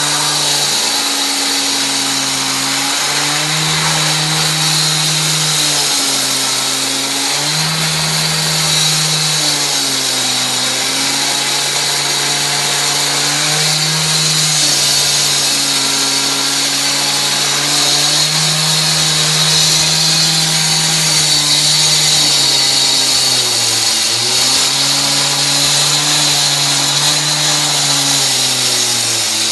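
K12 concrete cut-off saw's two-stroke engine running at high speed with a steady high hiss. Its pitch sags and recovers several times, dropping sharply about 24 seconds in.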